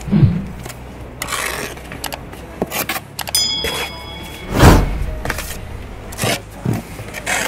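Steel mason's trowel scraping and slapping mortar while limestone is buttered and set, over wind rumbling on the microphone. A short electronic chime sounds a little under halfway through, and a heavier thud about two-thirds through.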